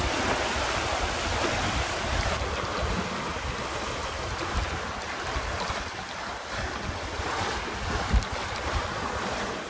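Wind buffeting the microphone over the rush of water along the hull of a small sailboat making about 7 knots through choppy sea.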